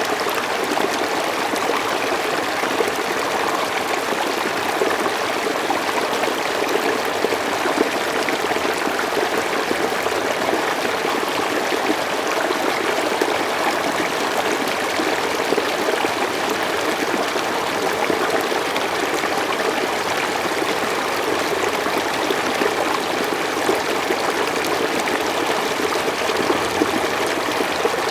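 Water flowing and trickling steadily, recorded close up.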